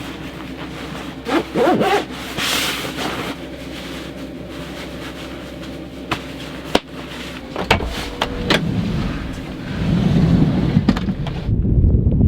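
A steady low hum with scattered clicks and knocks. About seven and a half seconds in, gusts of blizzard wind buffeting the microphone take over and grow louder.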